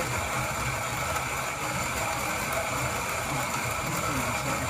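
Steady mechanical running noise, like a small motor, with a constant high whine over it.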